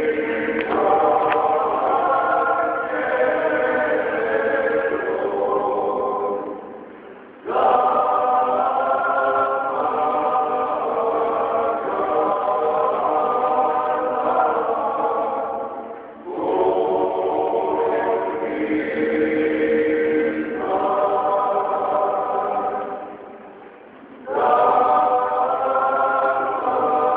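Male voices singing a cappella in close harmony: a traditional Dalmatian Lenten folk hymn in klapa style. It comes in long phrases of about eight seconds, each fading into a short break before the next begins.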